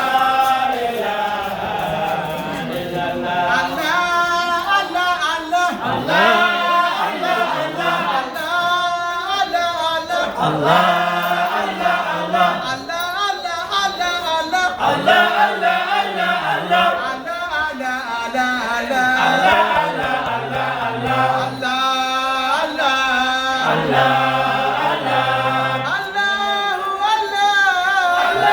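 A group of voices singing a religious praise chant together, the melody rising and falling in long sung phrases.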